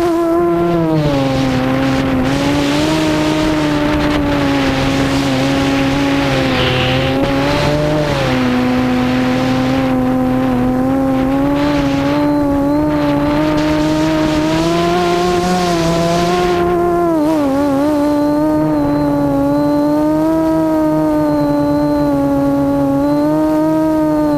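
Multirotor drone's brushless motors and 7-inch props whining in flight, the pitch rising and falling with throttle, with surges of rushing air. The drone is an FPV quadcopter on Cobra 2213 2000kv motors.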